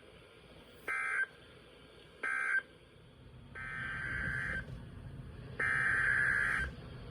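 Emergency Alert System SAME data bursts from a NOAA Weather Radio broadcast: two short, harsh buzzing bursts about 1.4 s apart, the end-of-message code closing one warning, then two longer bursts of about a second each, the header code of the next warning, over a low hum.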